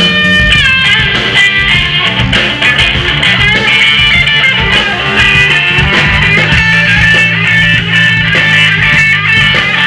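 Live rock band playing loud: lead electric guitar lines over bass guitar and drums, the guitar bending notes up near the start.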